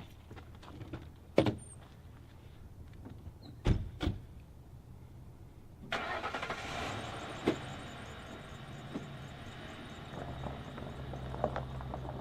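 Three sharp thuds, one about a second and a half in and two close together about four seconds in, like car doors or a trunk lid shutting. A car engine then starts about six seconds in and runs steadily.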